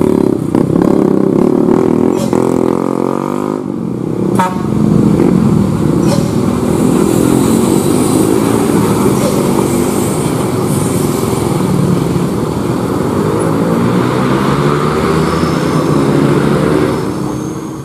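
Motorcycles and a diesel dump truck passing close on a steep hairpin, their engines running under load with pitch rising and falling as they take the bend. The engine sound fades near the end.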